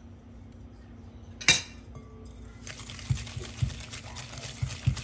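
Wire balloon whisk creaming butter and sugar in a glass bowl: a single sharp clink about a second and a half in, then from about two and a half seconds in a fast rattling scrape of the wires against the glass, with a few dull knocks.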